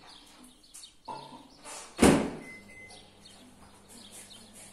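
Off-camera kitchen handling sounds: a few faint clicks and knocks, then one loud thunk about two seconds in, like a door being shut.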